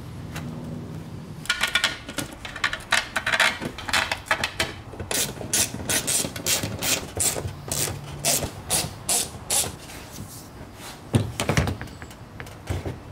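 Hand ratchet clicking in quick, uneven runs as the cooler's metal mounting bracket is bolted down to the car's floor. About eleven seconds in comes a louder knock as the cooler box is set onto the bracket.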